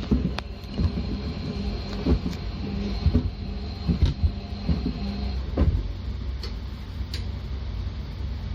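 Washing machine running a wash cycle with sneakers in a mesh laundry net: a steady low motor rumble with irregular thuds as the shoes knock around the turning drum. A faint whine cuts off about five seconds in.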